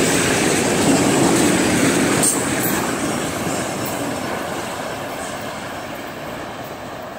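Autorack freight cars rolling past on the rails with a steady rumble of wheels on track. About two seconds in, the sound begins to fade as the end of the train moves away.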